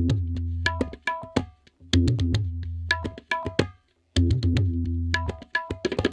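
Background music of rhythmic hand drumming: deep, ringing low strokes alternate with sharper pitched strokes, and the pattern breaks off briefly about four seconds in.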